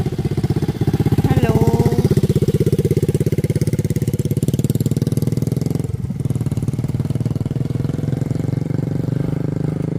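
Small motorcycle engine idling close by with a fast, even putter, a little louder for a moment a second or two in as another motorcycle rides past.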